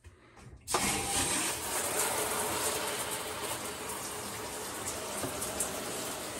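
Tap water turned on about a second in, then running steadily in a small camper bathroom.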